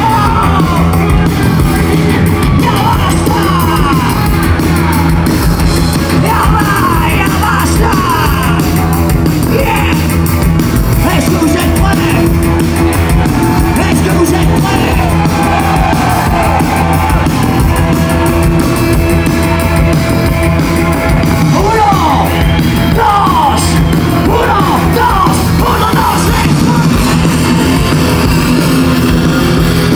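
Live rock band playing loud, with a singer shouting and singing into the microphone over electric guitars and drums.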